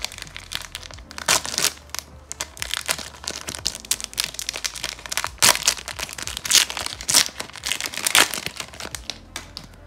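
Clear plastic wrapper of a hockey card pack being crinkled and torn open by hand, in irregular crackles with several louder, sharp ones scattered through.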